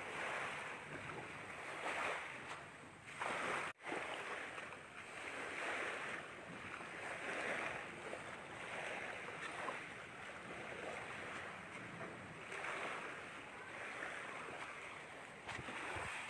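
Waves washing in, a hiss that swells and eases every second or two, with a brief sudden dropout about four seconds in.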